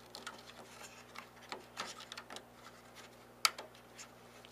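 Small plastic clicks and rustling of wires as wiring-harness connectors are handled and plugged into the control circuit board of a Behmor 1600 home coffee roaster, with one sharper click about three and a half seconds in.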